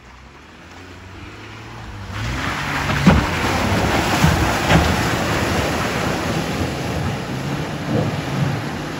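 Jeep Gladiator pickup driving through a deep mud puddle: its engine drones as it pulls through, and from about two seconds in mud and water splash heavily off the tyres, with a few thumps.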